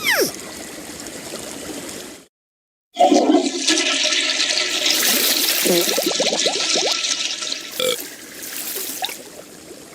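A cartoon sound effect: a quick falling whistle, then after a brief silent break a loud rushing, gurgling water sound like a toilet flushing, which fades near the end.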